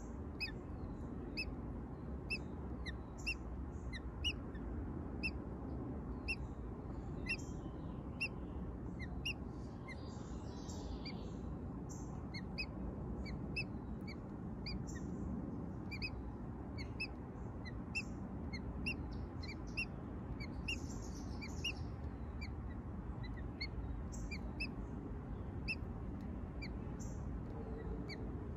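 Newly hatched American robin chicks peeping in the nest: a long run of short, high peeps about two a second, over a steady low rumble of outdoor background noise.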